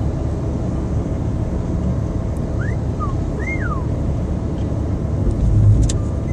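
Steady road and engine rumble heard inside a moving car's cabin. About three seconds in come two short chirps that rise and fall in pitch, and a louder low rumble swells briefly near the end.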